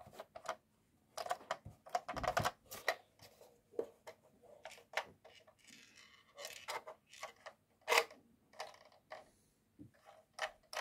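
Hard plastic toy parts being handled: irregular small clicks and taps, with a louder click about eight seconds in.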